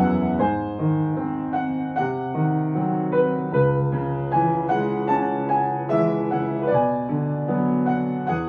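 Gentle piano music: a melody of notes struck in steady succession over lower held notes.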